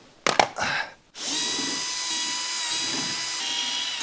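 A few clicks and knocks, then a handheld power drill-driver starts about a second in and runs steadily at speed with a high whine.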